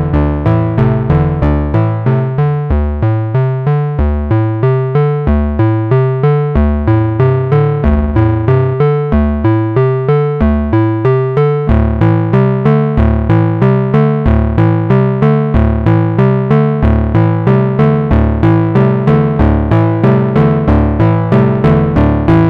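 Moog Subharmonicon analog synthesizer playing a sequenced pattern of short notes, each fading quickly, a little under three a second, with deep subharmonic bass under the oscillator tones. About halfway through, the notes and tone shift as the oscillator and subharmonic settings are changed.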